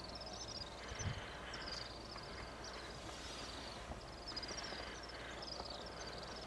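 Faint bush ambience of small creatures chirping: short, high, slightly falling chirp phrases repeating about twice a second.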